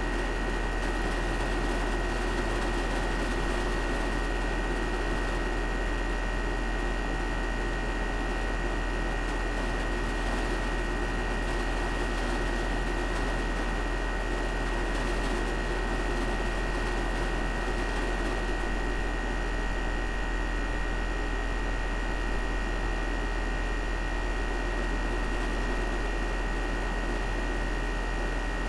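Carrier outdoor air-conditioning unit running steadily: a low hum and a steady high-pitched tone over an even rushing noise, with no change in level.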